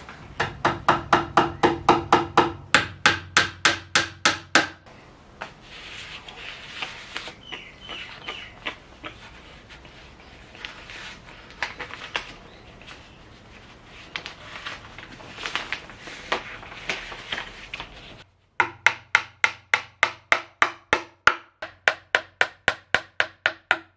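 Rapid hammer blows on a timber frame, about five a second with a ringing note, in two runs near the start and near the end. Between the runs there is quieter rubbing and crinkling.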